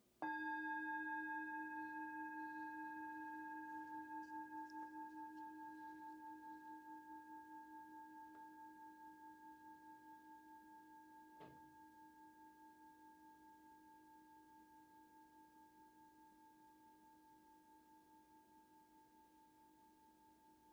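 Singing bowl struck once, ringing with a slow wobbling pulse and fading gradually, marking the close of the meditation. A faint click comes about halfway through.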